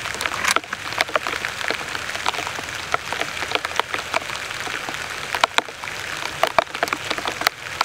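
Steady rain falling, with many sharp individual drop hits.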